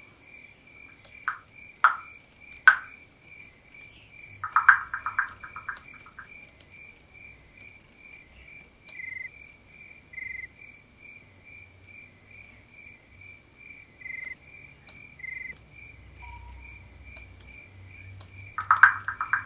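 Outdoor ambience of a small creature chirping in a steady, high-pitched rhythm, about two to three pulses a second, with a few louder short chirps near the start and again near the end.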